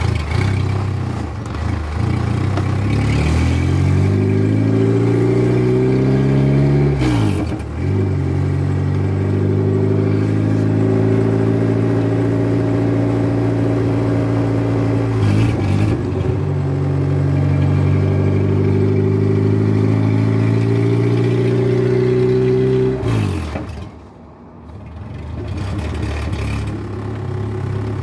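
A K-swapped Honda Civic's four-cylinder engine pulls through the gears. The revs climb, drop at an upshift about seven seconds in, hold with another brief dip near the middle, then fall away off the throttle near the end.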